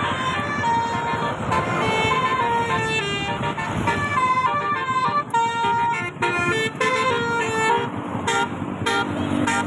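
Basuri 'telolet' bus horn, a multi-tone musical horn, playing a quick tune note after note in steady pitch steps, over a steady low noise.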